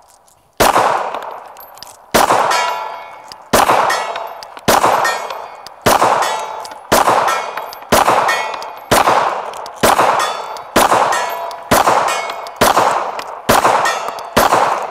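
Glock 19 Gen 5 9mm pistol fired in slow, steady aimed shots, about one a second and fourteen in all. Each shot is followed by the ring of a steel target plate being hit.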